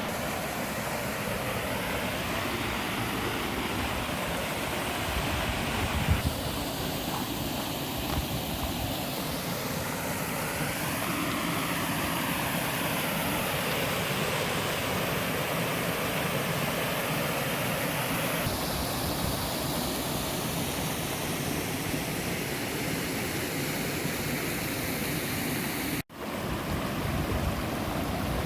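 Steady rush of a flowing creek and waterfall. The sound shifts abruptly twice along the way, and near the end it cuts out for a moment.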